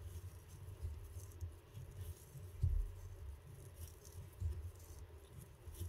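Faint handling noise of fly tying: light scattered ticks and low dull bumps as chenille is wrapped onto a hook held in a vise, the loudest bump about two and a half seconds in.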